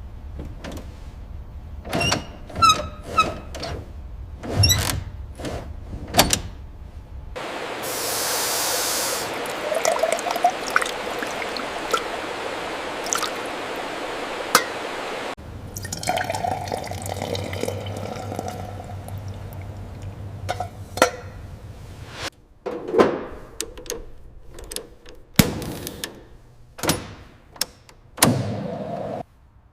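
A run of separate knocks and clicks, then about eight seconds of steady rushing liquid starting with a sharp hiss, then more scattered knocks and thunks.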